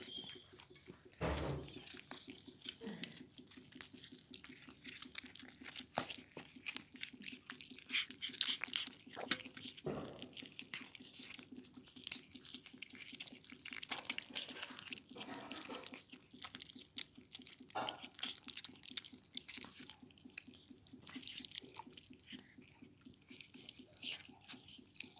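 Kittens eating meat: faint, irregular wet chewing and smacking clicks over a faint steady hum.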